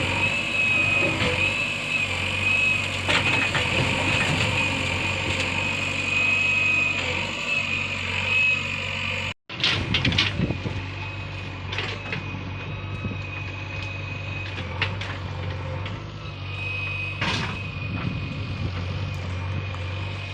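A heavy vehicle's engine running steadily, with a steady high whine above the engine note and scattered knocks. The sound drops out completely for a moment about nine seconds in.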